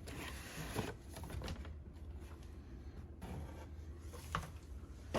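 Soft rustling of cardboard and plastic toy packaging being handled and unpacked, with a couple of light clicks and taps.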